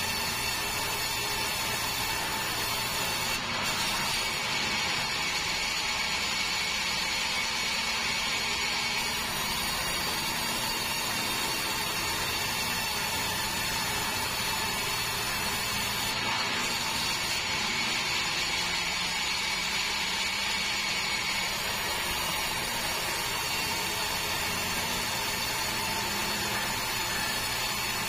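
Sawmill band saw running steadily and ripping a long meranti timber into boards: a continuous sawing rush with a steady whine over it.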